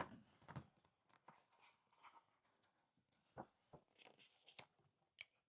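Near silence, broken by faint scattered taps and rustles, about a dozen short ones spread through the pause.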